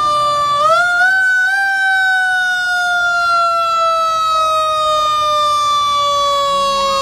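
Fire engine siren wailing: its pitch rises about a second in, then slides slowly and steadily down.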